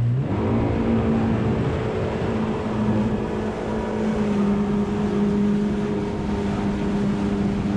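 Yamaha FX HO WaveRunner jet ski's four-stroke engine running at speed, a steady drone over the rush of water spray and wind. The pitch climbs briefly at the start, then holds at cruising revs.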